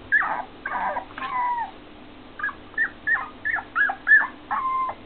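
Four-week-old Keeshond puppies yelping and whining: three longer calls, then a quicker run of short high yelps ending in a longer, held whine.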